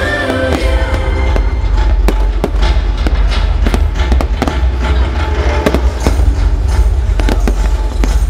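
Fireworks going off in quick, irregular bangs over loud music.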